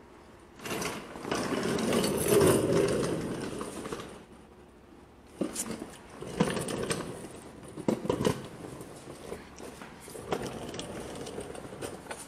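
Rustling and scraping handling noise with a few sharp knocks as a handheld camera is moved around under a car. It comes in two stretches: a loud one starting about half a second in and lasting about three seconds, then a choppier one from about five seconds on.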